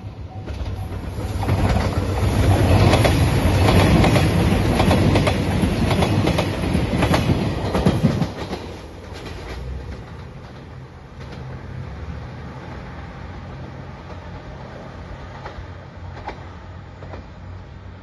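JR Shikoku 2700 series diesel express train passing close by at speed, its wheels clacking over the rail joints for about six seconds. It then drops away abruptly to a quieter, steady low diesel hum.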